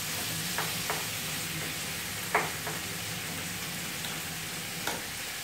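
Broccoli, carrots and onion sizzling in oil in a frying pan, a steady hiss, with a few knocks of a wooden spoon against the pan as they are stirred; the sharpest knock comes about two seconds in.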